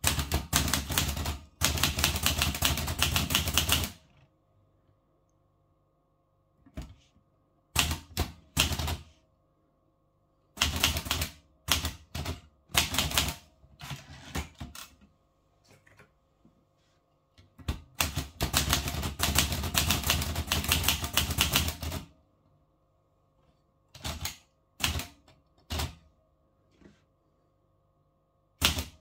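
Olivetti Lettera 32 manual portable typewriter being typed on: fast runs of key strikes in three bursts of several seconds each, broken by pauses and scattered single strokes, with the carriage lever worked once.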